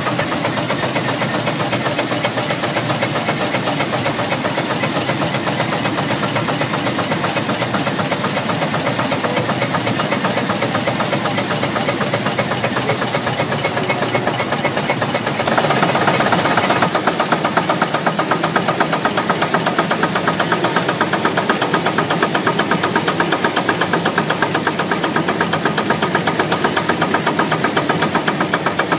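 1919 Emerson-Brantingham 60 hp steam traction engine running under load, belt-driving a John Deere threshing machine that is threshing oats. The sound is a steady, fast, rhythmic beat of machinery. About halfway through it turns louder and brighter.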